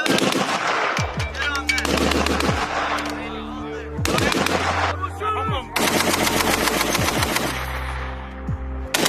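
Machine gun firing several long bursts of rapid automatic fire, with a music track and its deep bass beat underneath.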